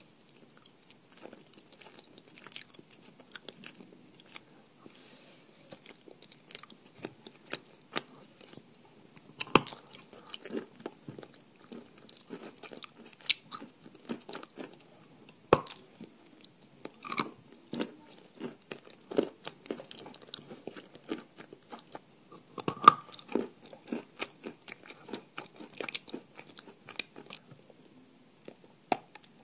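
Clay being bitten and chewed: irregular sharp crunches and clicks, some louder than others, with softer chewing between.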